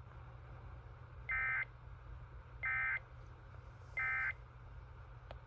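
SAGE EAS ENDEC sending the End of Message signal: three short bursts of two-tone digital data, each about a third of a second long and spaced a little over a second apart, marking the end of the emergency alert.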